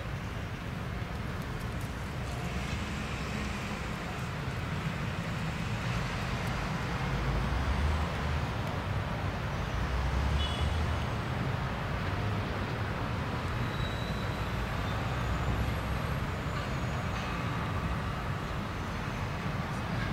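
Steady outdoor background noise: a low rumble of wind on the microphone mixed with road traffic.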